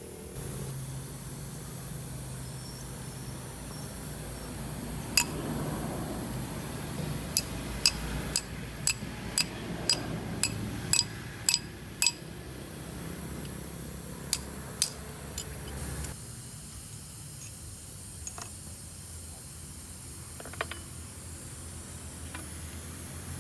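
Metal parts and tools clinking against each other, each clink sharp with a short high ring: about a dozen come in the middle of the stretch and a few fainter ones near the end, as a hydraulic main control valve is worked on. A low steady hum sits underneath.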